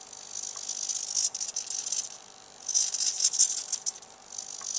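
Cheap hobby servos in a homemade robot arm buzzing and chattering as they move and jitter, in two stretches with a short lull about two seconds in. The builder puts the jitter down to the long, unbraced arm vibrating, and says the base servo may be slightly underpowered.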